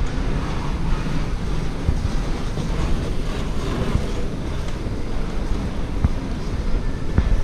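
Steady low rumble and hiss of a moving walkway being ridden.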